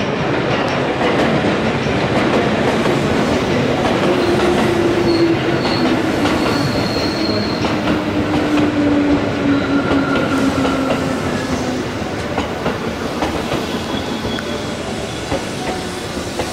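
Electric commuter train running along the platform. Its wheels click over the rail joints, a faint whine sags slightly in pitch, and there are brief faint high squeals. The sound eases off near the end.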